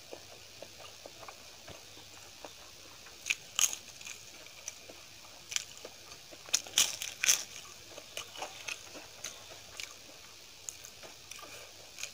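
Crunching bites and chewing of crisp fried papad eaten with rice: a few sharp crunches about three seconds in, then a louder run of crunches around the middle, with smaller chewing clicks between.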